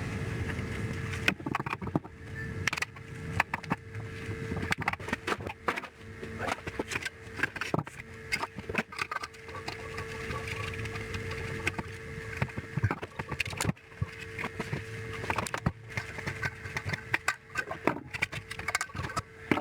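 Irregular clicks, rattles and knocks of a CRT TV being taken apart by hand, as the copper degaussing coil is pulled free and handled, over a steady faint hum.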